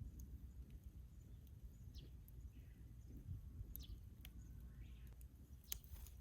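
Near silence: a faint outdoor hush with low rumble, a few scattered faint clicks and a few short high falling chirps.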